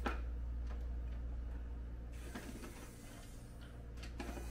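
A few faint, scattered clicks and ticks of a hand screwdriver turning screws into the Snoo's plastic base, over a steady low hum.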